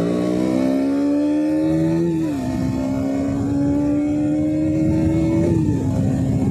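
KTM Duke motorcycle's single-cylinder engine pulling under hard acceleration. Its pitch rises through a gear, drops at an upshift about two seconds in, then climbs again to a second upshift near the end.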